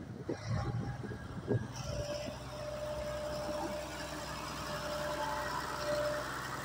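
Komatsu motor grader's diesel engine running steadily as the grader moves along grading soil. Uneven low thumps come first, then from about two seconds in a steady whine sits over the engine drone.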